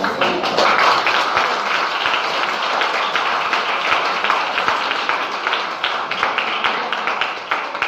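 Audience applauding: many hands clapping at a fairly even level.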